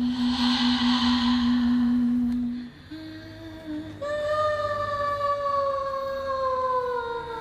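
Spooky Halloween sound effect: a steady low drone with a breathy whoosh over it, then after a short pause a long, slowly falling wailing tone, like a ghostly moan.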